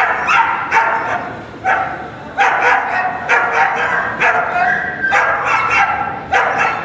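A 14-week-old German Shepherd puppy barking over and over in short, high yelping barks, about a dozen in a row, while its handler holds it back.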